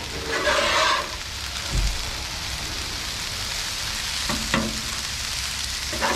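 Rice and vegetables sizzling steadily on a flat-top steel griddle, with a metal spatula scraping and knocking against the griddle plate several times as the rice is worked.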